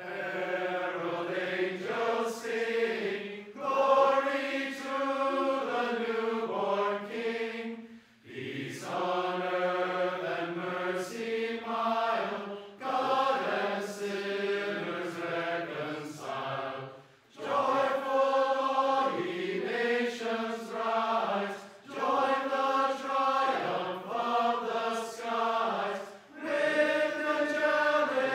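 A mixed choir of men's and women's voices singing a Christmas carol together, in phrases of a few seconds with short breaks for breath between them.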